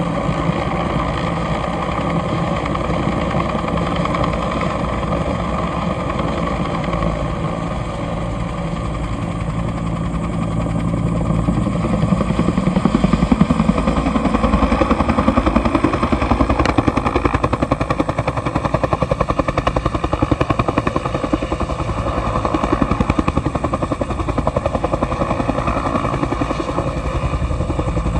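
Bell 212 helicopter running, its twin turbine engines whining under the rotor. About twelve seconds in it gets louder and a fast, even rotor beat comes through.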